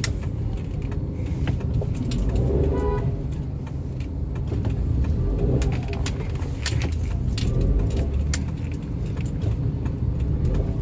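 Toyota Wigo driving, its engine and road rumble heard from inside the cabin, with scattered small clicks and rattles.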